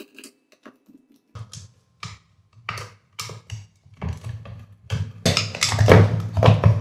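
Torx screwdriver working the screws out of a Garen 1/4 HP gate motor's metal housing: scattered clicks and scrapes, then a louder stretch of scraping and clattering of metal parts in the last couple of seconds.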